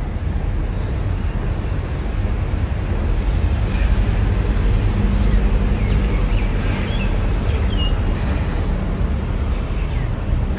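Wind buffeting the camera microphone outdoors: a steady, loud, low rumbling noise with no speech.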